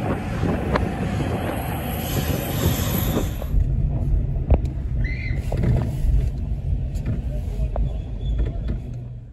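Heavy highway traffic, cars and trucks rushing past. About three and a half seconds in it changes to a low steady rumble of traffic heard from inside a car's cabin, with a few faint clicks.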